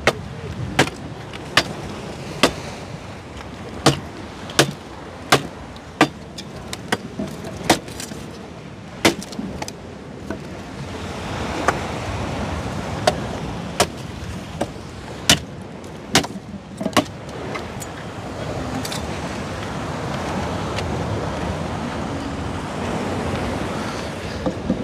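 Wood cooking fire crackling, with sharp irregular pops about one or two a second, over a rushing background noise that swells about ten seconds in and again near the end.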